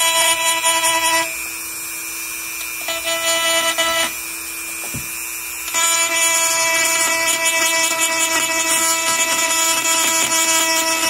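Hand-held rotary tool running at high speed, grinding a rib off the plastic back plate of a Briggs & Stratton primer bulb. Its steady high whine drops away twice in the first half, then runs on.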